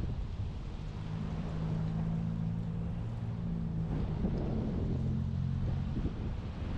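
Car engine running with a steady low hum over a low rumble.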